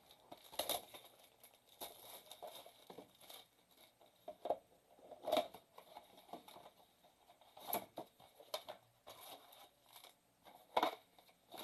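Hands opening a cardboard box of trading cards: scattered crinkling and tearing rustles, with a few sharper crackles a little under a second in, about five and a half seconds in, at about seven and a half seconds, and near the end.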